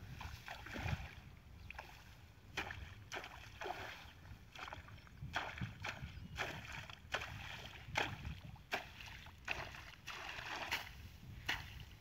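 Water splashing and sloshing as a person wades and works in shallow muddy water among grass: a string of short splashes and swishes, about one or two a second.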